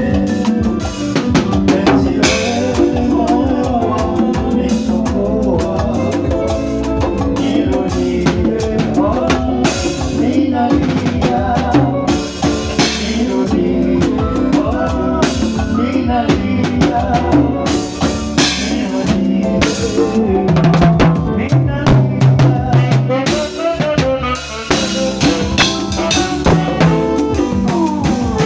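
Live bango band music: a drum kit played with busy snare and tom strokes and cymbal hits over an electronic keyboard, with no singing.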